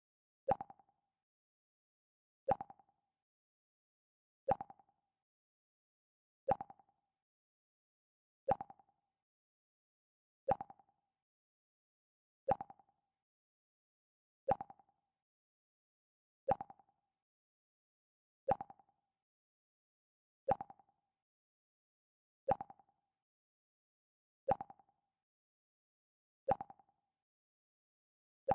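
The Mac OS X 'Pluck' alert sound: a short plucked tone that dies away quickly, repeating about every two seconds with silence between.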